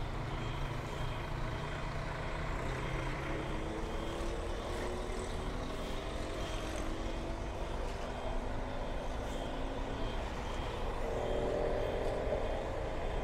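Heavy truck engine running, its speed rising slowly, then rising again near the end.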